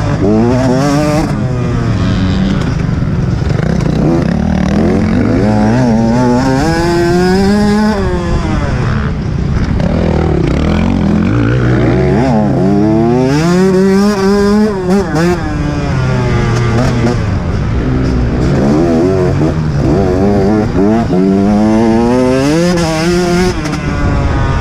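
Dirt bike engine heard from the bike itself, revving up and dropping back again and again as the rider accelerates, shifts and rolls off the throttle around a motocross track, with wind rush on the microphone.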